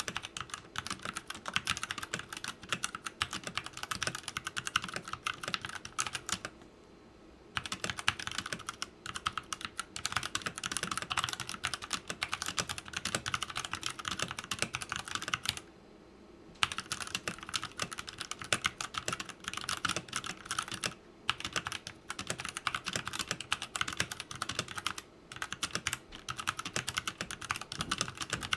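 Fast, continuous typing on a Redragon K530 Draconic 60% mechanical keyboard with brown tactile switches, set directly on the desk without a desk mat. The keystrokes come in a dense clatter, broken twice by a pause of about a second.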